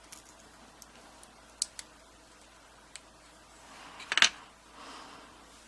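Small metal clicks and taps of a freshly repinned American padlock core being handled and fitted back into the padlock body, with a louder quick cluster of clicks about four seconds in.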